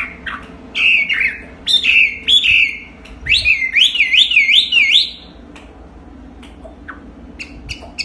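Chinese hwamei singing: loud varied whistled phrases, then a quick run of about six repeated swooping notes, going quieter after about five seconds with only a few short notes.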